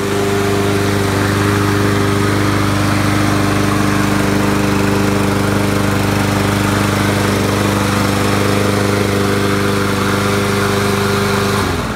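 Briggs & Stratton 550EX 140cc single-cylinder engine on a Troy-Bilt push mower running steadily at constant speed, its carburetor and gas tank freshly cleaned of bad gas. Near the end it is cut off and its speed falls away.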